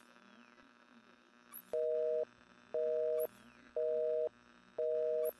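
Telephone busy signal: a two-tone beep, half a second on and half a second off, starting about a second and a half in. Under it runs a faint electronic hum with a short high rising chirp about every two seconds.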